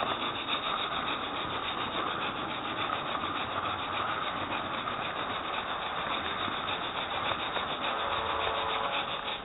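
Model train running along its track, heard through a mini webcam riding in a wagon at the front of the train. The wheels and motor make a steady rolling noise with a fast, even ticking running through it.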